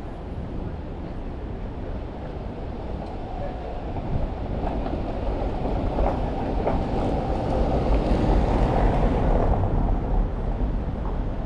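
A vehicle passing, its rumble building over several seconds and easing off near the end, over a steady low rumble.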